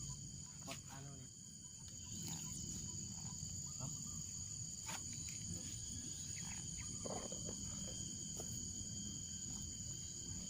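Steady insect chorus, several high-pitched drones held without a break, over low rumbling noise with a few scattered clicks.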